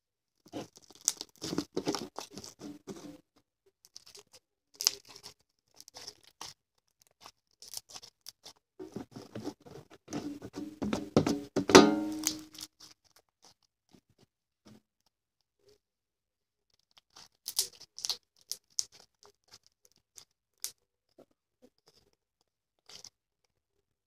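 Sticky blue slime mixed with instant snow being squished, stretched and pulled apart by hand, giving irregular crackling, squelching and tearing sounds in bursts, loudest about ten to twelve seconds in.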